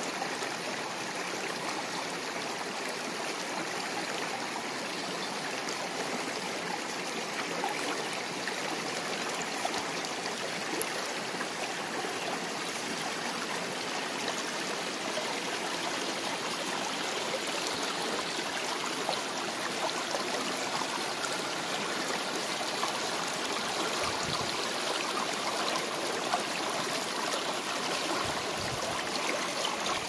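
A shallow creek's water running steadily over rocks.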